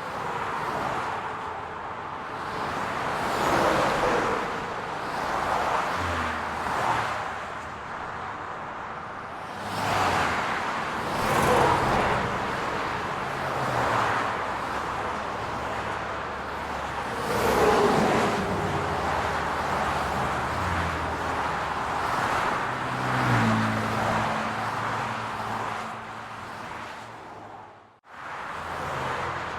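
City road traffic: cars passing one after another, each swelling and fading over a few seconds, with engines humming low. The sound cuts out abruptly for a moment near the end.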